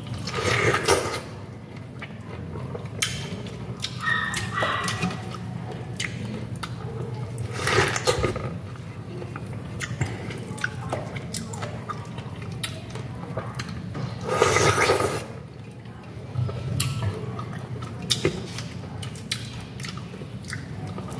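Close-up biting, chewing and sucking on juicy fresh pineapple, with many short wet smacking clicks. Three louder bites come about a second in, about eight seconds in and about fifteen seconds in. A low steady hum runs underneath.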